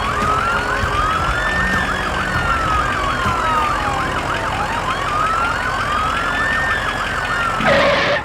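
Emergency vehicle sirens: a slow wail rising and falling about every four and a half seconds, with a fast yelping siren over it. A short, louder burst of another sound comes near the end.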